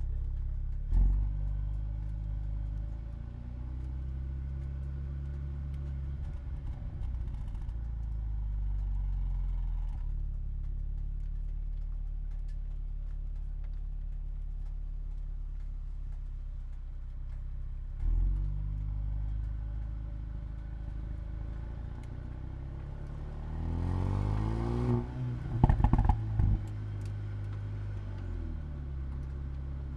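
Mercedes-AMG A35's turbocharged four-cylinder engine and exhaust pulling through gear changes, its pitch rising and falling with each shift. There is a sharp exhaust crack about a second in and another a little past halfway. A few seconds before the end it surges under hard acceleration, then lets off into a burst of loud pops and crackles, the loudest moment.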